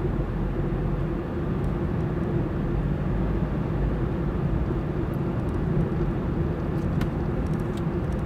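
A car driving on a road, heard from inside the cabin: steady engine and tyre noise with a low hum.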